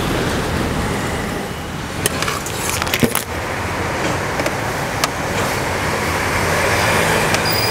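Steady road traffic noise, with a few sharp clicks and knocks about two and three seconds in and once or twice later.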